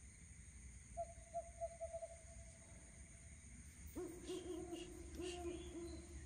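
Hooting calls in the dark: first a higher run of short hoots that runs into a held note, then, about four seconds in, a louder, lower series of hoots, over a steady high insect drone.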